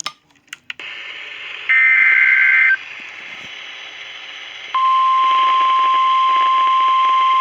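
NOAA Weather Radio alert over radio hiss. About two seconds in comes a one-second burst of the warbling SAME data header, the start of a new warning. Nearly five seconds in, the steady single-pitch warning alarm tone begins and holds.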